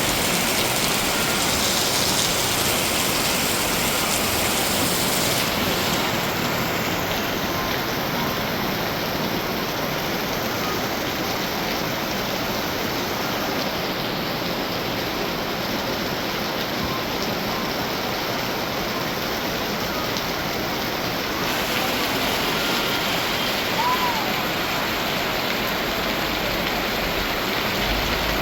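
Heavy torrential rain pouring down in a steady, dense hiss.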